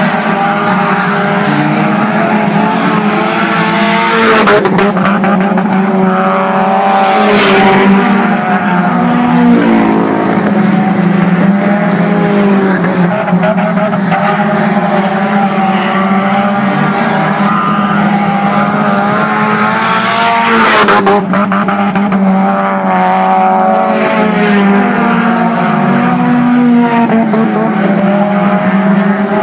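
Several dirt-track race cars running laps, their engines a loud, continuous drone whose pitch rises and falls as they go through the turns and down the straights. Cars pass close to the fence about four seconds in, about seven seconds in and again about twenty-one seconds in.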